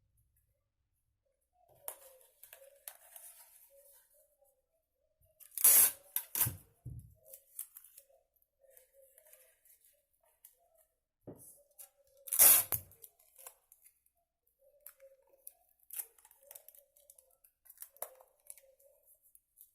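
Handicraft work sounds: materials being rustled and handled by hand, with two loud sharp strokes about six and twelve and a half seconds in.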